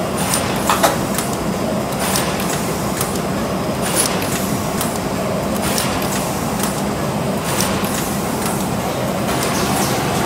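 HM-ZD350D automatic rigid box making machine running: a steady mechanical hum with a sharp click about once a second as the box wrapping and forming unit cycles.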